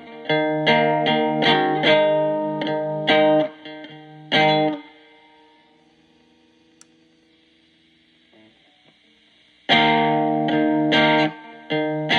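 Electric guitar played through a breadboarded Distortion+ circuit, with repeated distorted notes and chords. The playing stops about five seconds in, a single click comes as a selector knob on the diode substitution box is turned to change the clipping diodes, and near ten seconds the distorted playing resumes.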